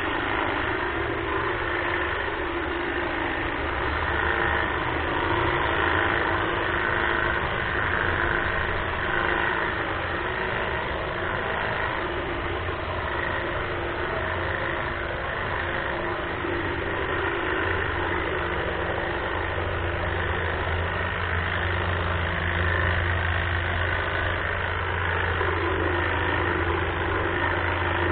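Greenworks battery-powered hedge trimmer running steadily.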